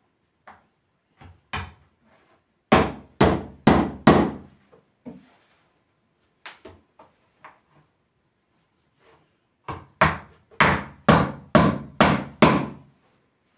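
Hammer blows on a thick wooden tree-trunk slab: a few light taps, a quick run of four hard blows, more light taps, then a second run of about seven hard blows at roughly two a second, each with a short ringing tail.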